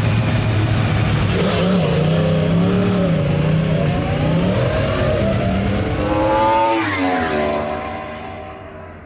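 Motorcycle engine at speed, its pitch rising and falling with the throttle, climbing sharply about two-thirds of the way through, then dropping away and fading.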